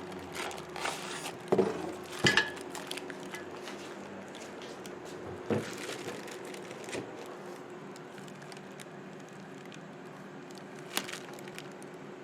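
Handling of the drill press parts while unboxing: scattered knocks and clacks of the parts being moved and set down, with some rustling, over a steady faint hum. The loudest knocks come twice in quick succession about two seconds in.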